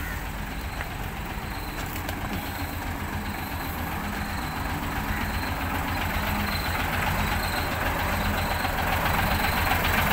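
Hino 500 Series diesel truck engine idling steadily with an even, pulsing rumble, getting louder toward the end.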